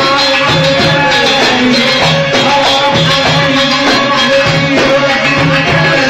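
Egyptian shaabi band music played live, with a drum kit keeping a steady beat under one long held note.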